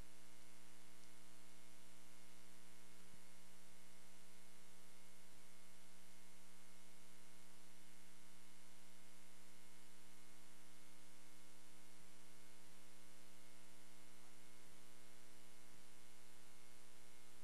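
Steady electrical mains hum and buzz, a stack of fixed tones over hiss, with no clear game sounds above it.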